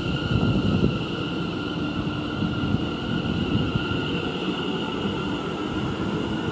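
Train running: a low, uneven rumble with a steady high whine above it, a little louder in the first second.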